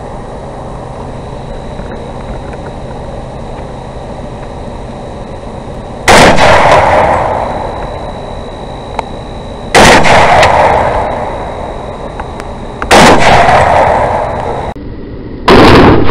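Four rifle shots fired at a hog through a thermal-scoped rifle. The first comes about six seconds in and the rest follow roughly three seconds apart. Each is a very loud crack that rings off over a couple of seconds, over a steady hiss with a faint high whine.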